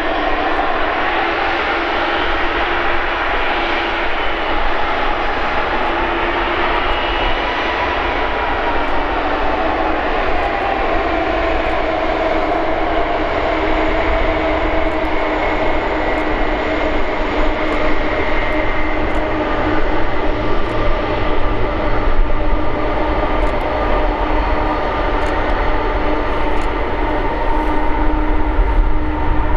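Boeing 747-412 freighter on approach to land, its four turbofan engines giving a dense jet roar with several whining tones that slowly slide in pitch. The sound grows louder toward the end as the aircraft nears.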